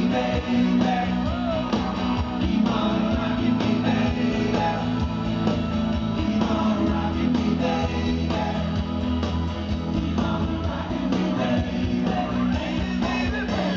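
Live rock band playing: electric guitars, bass guitar and drums, with voices singing.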